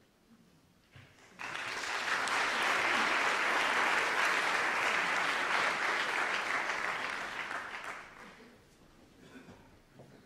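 Audience applauding: the clapping starts about a second and a half in, holds steady, and dies away about eight seconds in.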